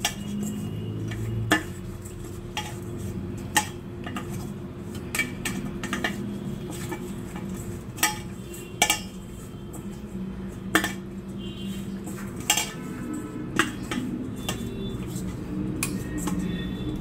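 Peeled prawns being mixed with turmeric by hand in a stainless-steel bowl. The hand and prawns knock against the steel, giving irregular clinks about every second or two, a few of them ringing briefly.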